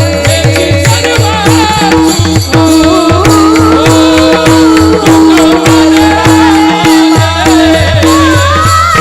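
Varkari abhang bhajan music: a singing voice carries a gliding, ornamented melody over a steady held note, with a low hand drum beating about four strokes a second and jingling cymbals.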